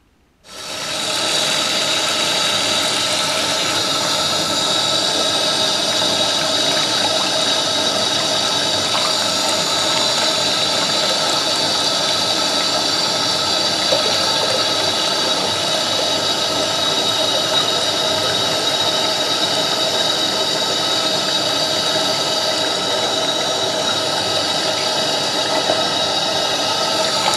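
Water tap running at full flow and pouring into a small plastic model toilet, filling its bowl to test whether the trapway drains. A steady rushing sound with a faint high whine in it, starting suddenly about half a second in.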